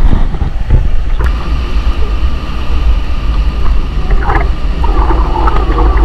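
Wind buffeting the microphone, with a steady rush of falling water behind it. Faint voices come in about four seconds in.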